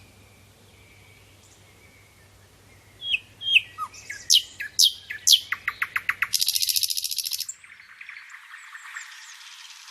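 Wild songbirds calling. About three seconds in there is a run of sharp, down-slurred chirps, followed by a loud, fast rattling trill. That ends abruptly, and a softer background of many birds chirping takes over.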